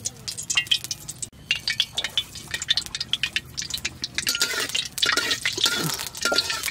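Liquid dripping and spattering, with many sharp crackles that grow denser and louder toward the end.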